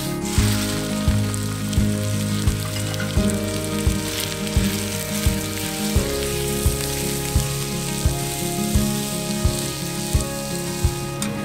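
Chicken sizzling on a hot carbon-steel plow-disc pan, a steady frying hiss, under background music with a steady beat of a little under one and a half beats a second.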